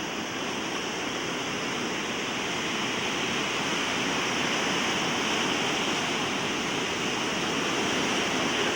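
Rough ocean surf: waves breaking and washing up the beach as a steady rushing noise, swelling a little louder midway and again near the end.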